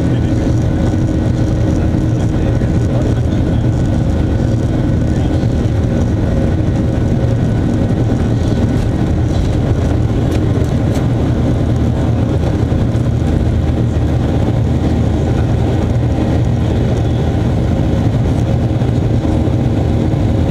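Boeing 737-800's CFM56-7B turbofan engines at takeoff thrust, heard inside the cabin during the takeoff roll and liftoff: a loud, steady rumble with a few steady whining tones above it.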